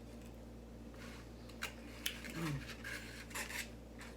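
Soft eating sounds from a sloppy chili-topped burger: a series of short wet clicks and rustles of chewing and handling the food, over a steady low hum.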